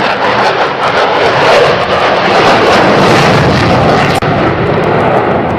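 Loud, steady roar of a military jet flying a display pass. A brief break comes a little past four seconds, after which the roar sounds deeper and duller.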